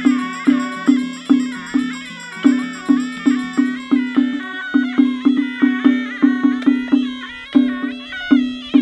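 Chinese folk ritual music: a wavering, high reed-pipe melody over a drum struck about two to three times a second, the beats quickening briefly in the middle.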